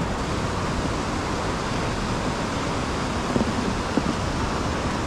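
Creek water rushing over rocks, a steady even rush, with a couple of faint knocks about halfway through.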